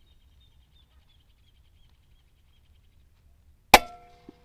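A single shot from an Artemis P15 PCP air rifle in 5.5 mm: one sharp crack near the end with a brief ring after it, then a faint knock about half a second later. Before the shot, faint high chirping runs in the background.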